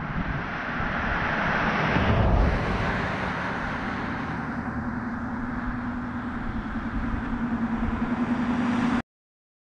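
Road traffic passing: tyre and engine noise swells to a peak about two seconds in and fades, then a steady low hum of another vehicle comes in. The sound cuts off suddenly near the end.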